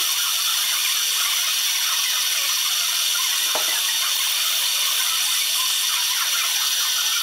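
Warco Super Mini Lathe running steadily with its tool cutting a brass workpiece: a steady high whine and hiss of the motor and drive mixed with the scrape of the cut.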